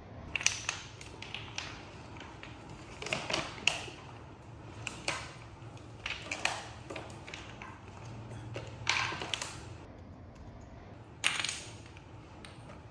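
Small wooden stacking blocks clicking and clattering against each other and a hard tile floor as they are handled and dropped, in scattered knocks every second or two.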